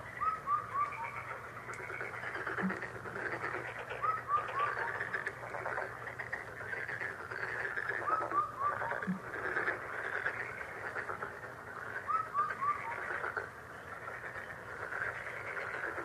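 Countryside dawn ambience: a dense, steady chorus of small calls, with one bird repeating a short phrase of four falling notes about every four seconds. A brief low note sounds twice.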